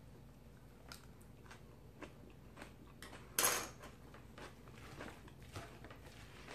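Faint clicks and scrapes of a utensil stirring dressed coleslaw in a bowl, with one louder scrape about three and a half seconds in.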